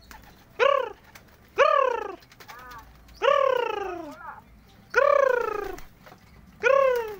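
An animal calling five times, a second or so apart. Each call is short and loud, rising and then falling in pitch.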